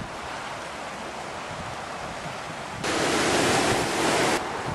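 Steady rush of ocean surf with wind on the microphone. About three seconds in, a louder hiss starts suddenly and cuts off a second and a half later.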